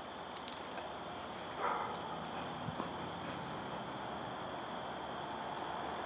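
A few faint metallic clinks and jingles of a dog collar's buckle and tags being fastened around a dog's neck.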